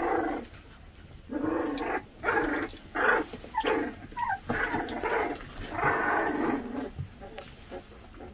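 Several 20-day-old goldendoodle puppies growling and whining at play, in a string of short cries that tails off near the end.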